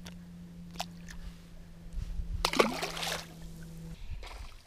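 A small fish released by hand splashing back into the water about halfway through, a brief slosh and splash.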